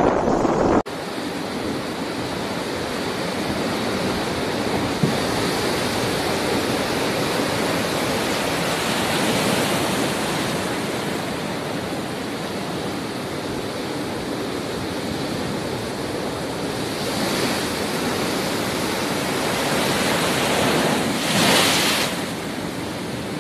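Heavy storm surf breaking against a pier: a continuous rush of crashing waves, with wind in it. Two louder surges of breaking water come about two-thirds of the way through and near the end.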